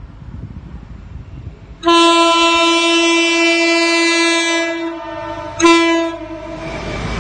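Train horn sounding one long blast of about three seconds, then a short second blast, from the approaching train. The noise of the train running through the station rises near the end.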